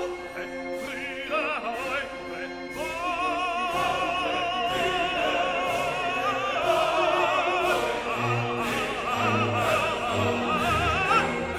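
Background music: operatic singing with a strong vibrato over orchestral accompaniment.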